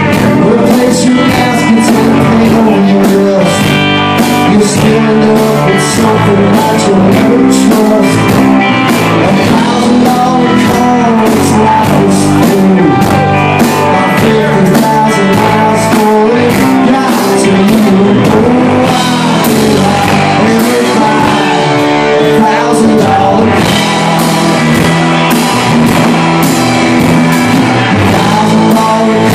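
Live rock band playing loud and full: electric guitars, bass and a drum kit with a steady beat, and a lead vocal singing over them.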